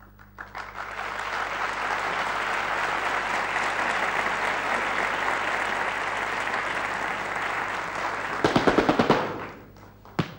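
Audience applauding steadily for about eight seconds. Near the end comes a quick run of louder, sharp, evenly spaced strikes, then it dies away; one more sharp strike comes just before the end.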